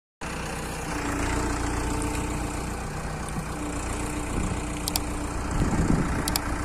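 ACE FX150 hydra crane's diesel engine running steadily with a low hum, swelling slightly near the end. Brief sharp clicks come twice, once about five seconds in and once near the end.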